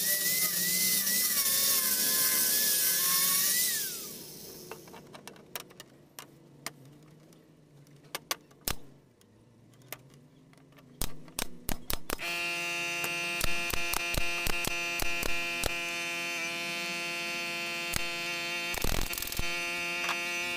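Angle grinder with a sanding disc running against the wooden cabinet frame with a wavering high whine, then switched off and winding down about four seconds in. Scattered clicks of handling follow, and from about twelve seconds a steady machine hum of even, unchanging tones sets in, with a few clicks over it.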